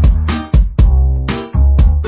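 Background music with a regular beat, heavy bass notes and sharp percussion hits.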